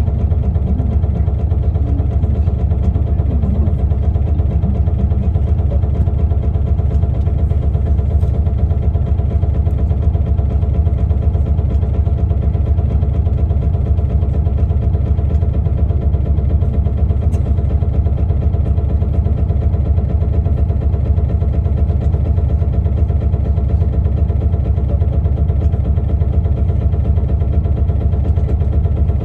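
Isuzu Erga KL-LV280L1 city bus's diesel engine idling steadily, its pitch and level unchanging.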